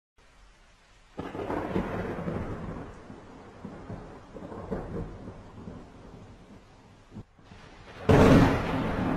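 Thunder: a clap about a second in that rumbles on and fades over several seconds, then a louder, sharper thunderclap near the end with a rumbling tail.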